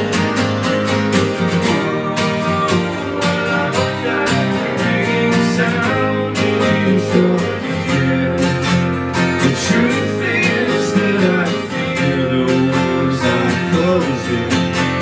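Two acoustic guitars strummed together in a drumless live band, playing steadily.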